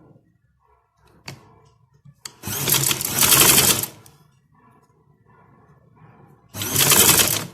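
Electric sewing machine stitching in two short runs, the first about a second and a half long and the second about a second, with a sharp click or two before the first run.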